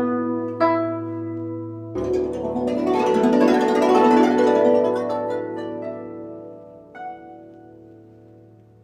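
Guzheng music: a few plucked notes, then a sweeping glissando across the strings about two seconds in, and one last note near seven seconds. The notes ring on and die away as the piece fades out over a low held bass tone.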